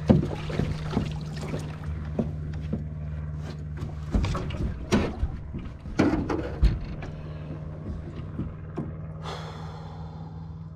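Knocks and thumps on the aluminium hull of a jon boat as an angler moves his feet and sweeps the rod while fighting a fish, over a steady low hum. A short whirring buzz comes near the end.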